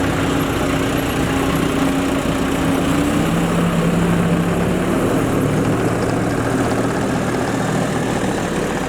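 Skid steer loader's engine running steadily, its pitch stepping down to a lower steady note about three seconds in as the revs drop.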